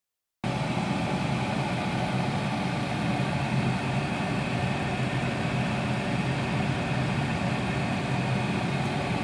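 A steady low mechanical hum like an idling engine, over a constant background hiss. It cuts in about half a second in and stops abruptly near the end.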